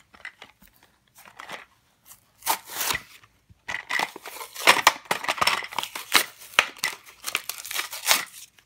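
Cardboard toy packaging being pulled and torn open by hand: a run of tearing, scraping and crinkling noises, sparse at first and coming thick and fast from about four seconds in.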